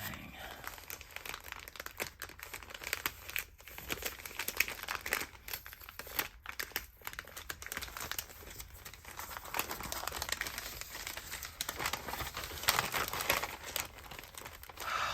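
Packaging being unwrapped by hand: a long run of irregular rustles and crackles, louder in two stretches, with some tearing.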